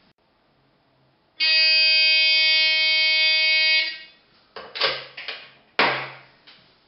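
A rotary telephone modified to play sound files rings once with a steady buzzing tone lasting about two and a half seconds. Its plastic handset then clatters and clicks as it is lifted off the cradle.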